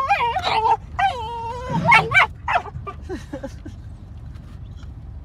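Boxer dog whining in high, wavering cries, with a couple of sharp barks about two seconds in, then shorter yelps that die away. A steady low rumble runs underneath.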